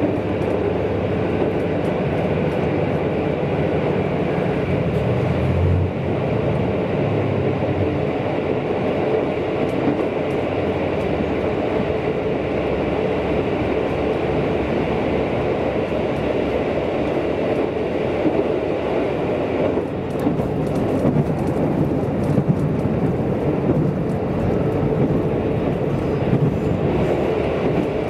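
KiHa 185 diesel railcar running at speed through a tunnel: a steady rumble of engine and wheels on the rails. From about two-thirds of the way in, sharp clicks and knocks from the wheels come through more often.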